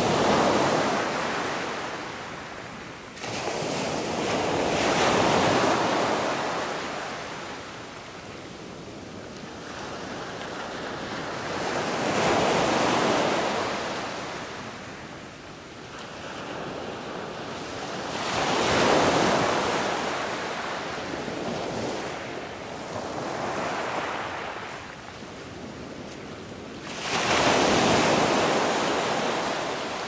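Ocean surf washing ashore, the noise swelling and fading in slow surges about every five to seven seconds.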